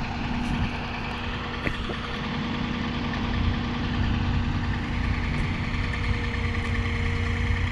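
Engine idling steadily, a constant low hum with no revving.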